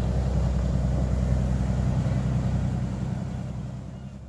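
Steady low engine rumble that eases off over the last second.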